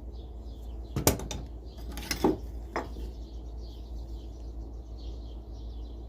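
Wood-handled screwdrivers knocking and clinking as they are handled and set down on a hard surface: a sharp clatter about a second in, then two more knocks in the next two seconds.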